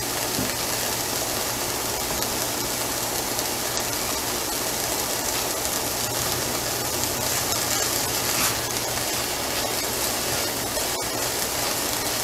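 Diced onions and garlic sizzling steadily in oil in a cast-iron skillet over medium heat, with a low steady hum beneath.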